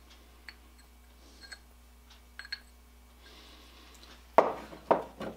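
Cast crank being tried onto the ground end of a grinder axle: a few small metallic clinks as the parts touch, then three heavier knocks near the end.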